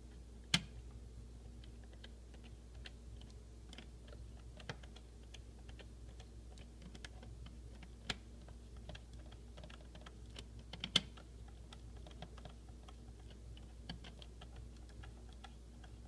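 Small irregular clicks and ticks of a screwdriver working the screw terminals of a plastic thermostat wall plate, with two sharper clicks, about half a second in and about eleven seconds in.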